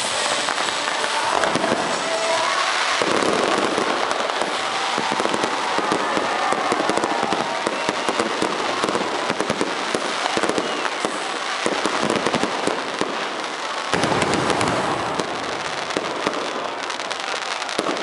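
Fireworks display in full barrage: a dense, unbroken rattle of small bangs and crackling from rockets and crackling star bursts. Deeper booms thicken the sound about three-quarters of the way through.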